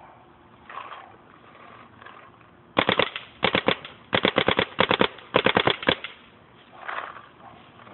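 Smart Parts Ion electropneumatic paintball marker firing several quick strings of shots, about five bursts over some three seconds, each a rapid run of sharp pops.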